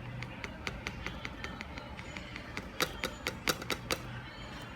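A run of light, quick taps and clicks from tapping glitter out of its container, a few a second, louder from about the middle before thinning out.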